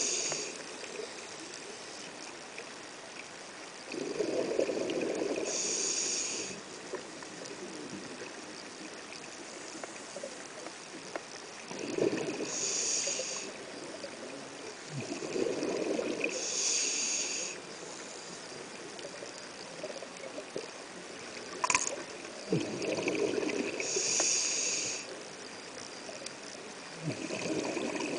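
Scuba diver breathing through a regulator underwater: a hiss on each inhalation and a burble of exhaust bubbles on each exhalation, about five breaths several seconds apart. One sharp click sounds once late on.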